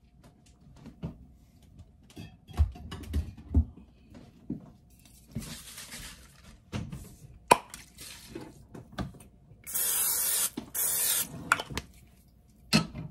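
Aerosol butter-flavoured nonstick cooking spray hissing into a ceramic loaf pan: a loud spray about ten seconds in lasting over a second with a brief break, after a fainter hiss a few seconds earlier. Before that come scattered clicks and low knocks of the can being handled.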